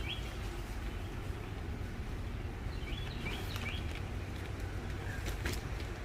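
Outdoor background: a steady low rumble, with a bird calling a short phrase of quick high chirps about three seconds in, and a couple of faint clicks near the end.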